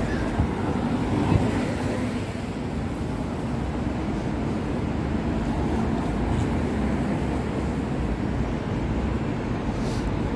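Steady low rumble of a moving vehicle, with a couple of brief knocks in the first two seconds.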